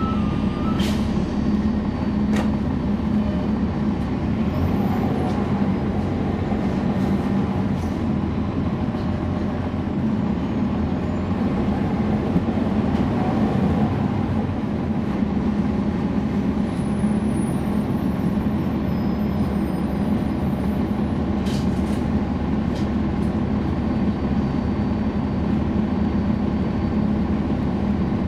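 Cummins ISL9 inline-six diesel engine of a NABI 40-SFW transit bus running steadily, heard from inside the bus. A few brief clicks or rattles sound about a second in, at two seconds, and again near the three-quarter mark.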